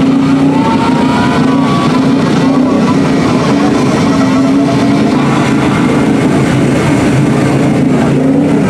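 Mud buggy's engine running loud and steady under load while its big tires churn through deep mud and water.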